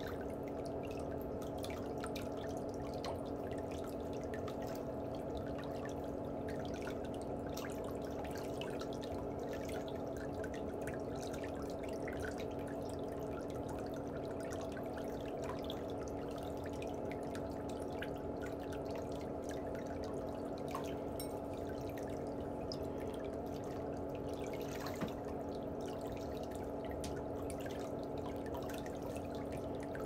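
Steady trickle of running water, with faint small scrapes and ticks from a metal nail pick working under a big toenail.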